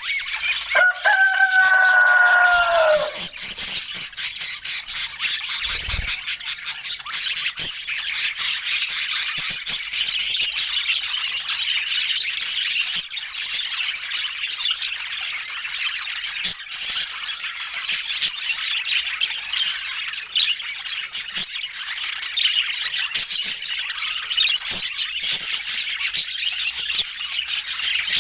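Budgerigars chattering and warbling without pause, a dense mix of quick high chirps and clicks. A longer, drawn-out note, falling slightly, stands out about a second in.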